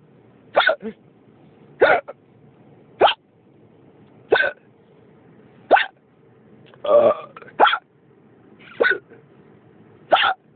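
A person hiccupping over and over: eight short, sharp hiccups at a steady pace of about one every 1.3 seconds, with one longer, rougher sound just before a hiccup about seven seconds in.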